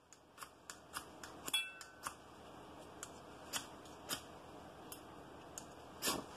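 A fire crackling faintly: irregular snaps and pops over a low steady hiss, one pop about a second and a half in carrying a brief high squeak.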